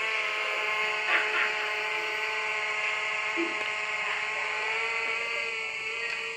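Fimi X8 SE quadcopter drone's propellers and brushless motors giving a steady high-pitched buzzing whine in flight after take-off, easing slightly near the end.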